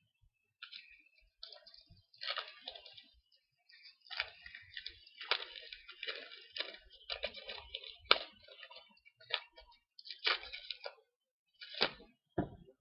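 Foil trading-card packs and cards being handled close up: irregular crinkling and rustling of foil and card in short bursts, with one sharp click about eight seconds in.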